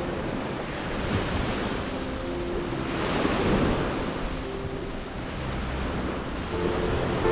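Sea waves washing onto the shore, with wind buffeting the microphone; the surf swells to its loudest about halfway through.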